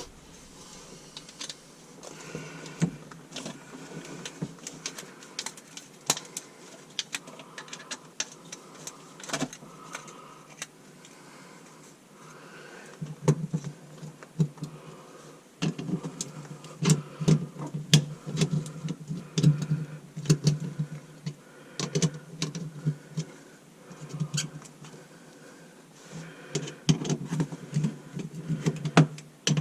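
Irregular clicks and knocks of plastic drain pipe and fittings being handled and fitted together, with a Mission band rubber coupling on the joint. About halfway through, a low hum starts coming and going in short spurts.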